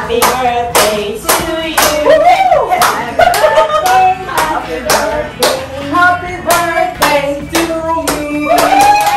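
Rhythmic hand clapping, about two to three claps a second, with voices singing along over it.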